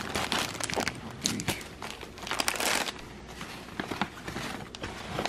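Plastic MRE packaging crinkling as it is handled and unpacked: a clear plastic bag of meal components, then a hand rummaging inside the tan MRE pouch, in irregular crackling bursts.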